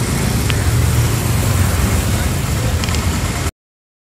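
Street traffic noise with a vehicle engine running, a steady low hum under a wide hiss; the sound cuts off abruptly about three and a half seconds in.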